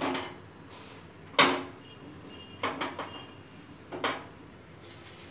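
Balls of dough being set one by one into the cups of a metal appe pan, with about five sharp knocks and clinks of dough, hand and pan against metal, the loudest about a second and a half in.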